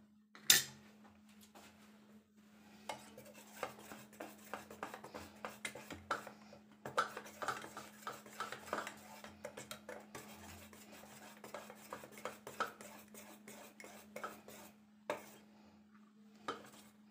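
Metal spoon stirring semolina cake batter in a stainless steel bowl, clinking and scraping against the sides in quick, irregular taps, as vanilla essence is mixed in. A faint steady hum runs underneath.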